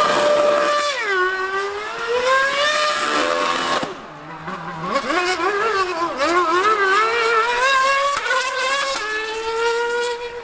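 A 2013 Formula One car's V8 engine revving hard while spinning donuts, its rear tyres smoking. The revs rise and fall repeatedly and drop away about four seconds in, then climb back in wavering surges and settle into a steady high note near the end.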